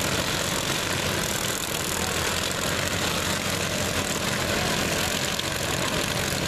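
Several riding lawn mower engines running at once, a steady mechanical din with no let-up.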